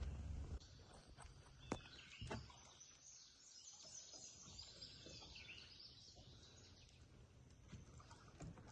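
Near silence: faint birds chirping, with a brief low rumble at the start and two soft knocks early on.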